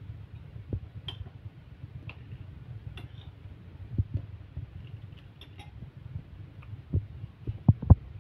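Scattered soft knocks and light clicks from handling a plastic cup and bag of cooked black beans over a bowl, with the loudest knocks near the end, over a steady low hum.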